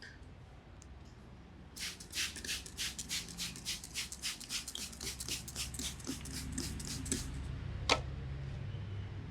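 A barber's hands working rapidly over an oiled head in a head massage: a fast run of rubbing or tapping strokes, about four a second, lasting about five seconds, followed by a single sharp click.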